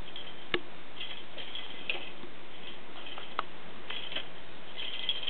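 A kitten batting small toys around on carpet: a few sharp, irregularly spaced clicks with short bits of light, high rattling between them. The loudest click comes about half a second in.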